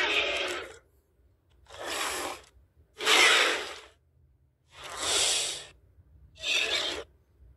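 Vastatosaurus rex creature sound effects: a string of short monster snarls and growls, each under a second long, separated by brief silences. The first is already under way at the start and ends almost a second in, and four more follow.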